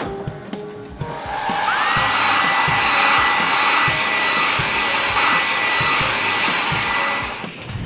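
Air blower of a cartoon train-wash dryer running: a steady whooshing hiss with a whine that rises and then holds a steady pitch. It starts about a second in and stops shortly before the end.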